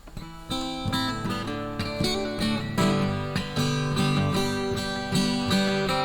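Acoustic guitar strumming chords as a song's instrumental introduction, coming in about half a second in and keeping a steady rhythm.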